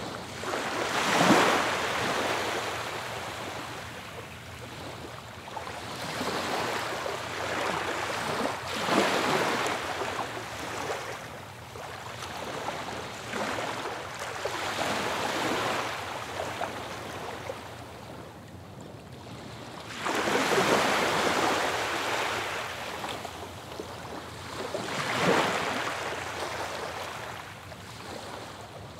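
Ocean waves breaking on a beach, each swelling into a hiss and then drawing back, about every four to six seconds.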